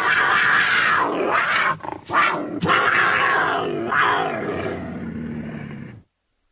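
Cougar vocalising: a loud, rough, growling roar with a short break about two seconds in. The call then resumes, slowly fades, and cuts off abruptly near the end.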